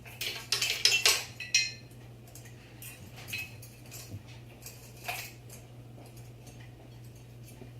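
Metal parts of a ceiling fan clinking and rattling as they are handled, thickest in the first two seconds and then a few scattered clinks, over a steady low hum.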